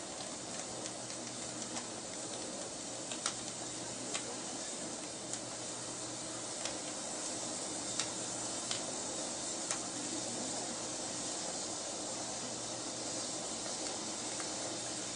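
Brightstar waterfall firework burning: a row of fountains pouring sparks with a steady hiss. Several sharp crackles or pops come between about three and ten seconds in.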